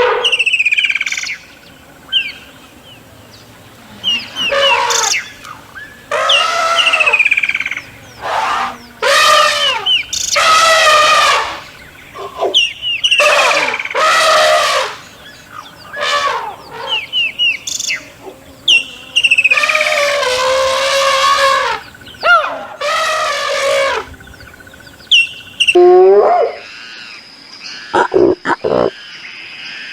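Bird calling repeatedly: about a dozen loud, harsh calls up to a second long, with short high chirps in between. Near the end it gives way to a quieter steady high background with a few clicks.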